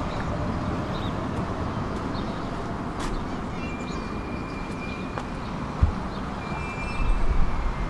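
Tram running along the track, heard from inside the car: a steady rolling noise with a single thump about six seconds in. Thin high tones come and go in the second half, and the low rumble grows louder near the end.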